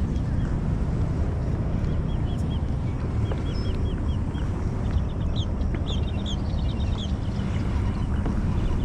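Small birds calling in quick series of short, high chirps over a steady low rumble.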